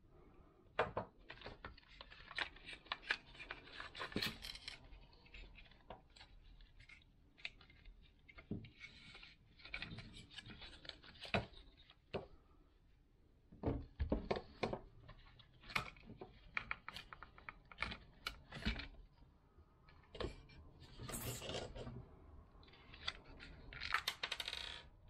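Disassembly handling of a Minelab CTX 3030 metal detector's plastic housing and carbon-fibre shaft: a steady run of irregular clicks, knocks and taps, with brief scraping noises about two-thirds of the way through and again near the end.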